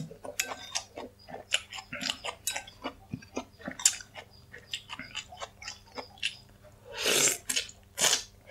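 Close-miked eating of noodle soup: wet chewing and lip smacks with many short mouth clicks, then two loud slurps from a spoon of broth about seven and eight seconds in.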